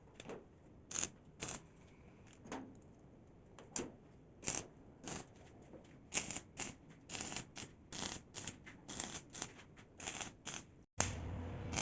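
Irregular short clicks and scrapes of hand work on small parts and materials, coming faster after about six seconds. Near the end they cut off abruptly into a steadier sound with a low hum.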